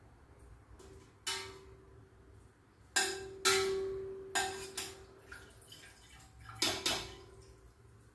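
Metal kitchen utensils (ladle, strainer, tongs) knocking against a stainless steel pot, about seven clanks, the pot ringing briefly after each.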